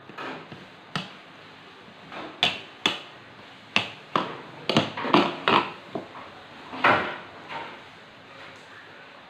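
Metal wire potato masher pushed down through boiled potatoes, knocking against a ceramic bowl: about a dozen irregular knocks, bunched through the middle.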